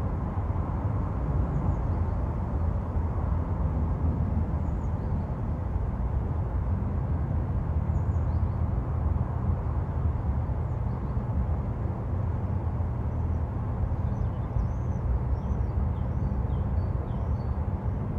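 Steady low rumble of city road traffic, with faint bird chirps scattered through and a small cluster of them near the end.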